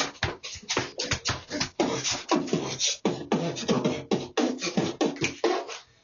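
A person beatboxing: a fast run of mouth-made drum sounds, with short sung or hummed notes mixed in.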